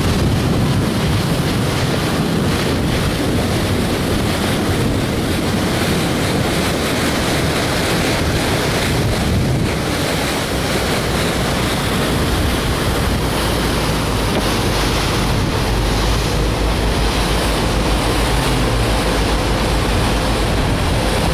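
Wind buffeting the microphone over the steady rush of sea water along the hull of a moving tour boat.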